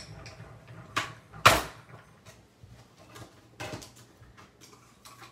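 Small hand-cranked die-cutting machine rolling a die and plastic cutting plates through: a run of plastic clicks and knocks from the plates and crank, with one loud knock about a second and a half in and another cluster of clicks a couple of seconds later.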